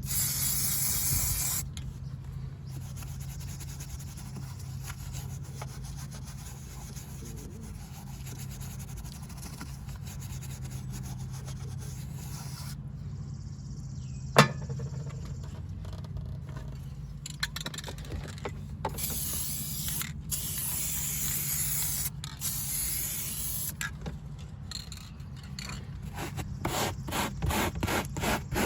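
Nylon toothbrush scrubbing paint into automotive carpet fibres, in quick strokes that are fastest near the end, with bursts of hissing from an aerosol spray can at the start and again about two-thirds through. One sharp click about halfway, over a low steady hum.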